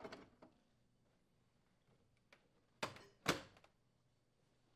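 Plastic ice bin door of a KitchenAid refrigerator being shut, two short knocks about half a second apart, the second louder.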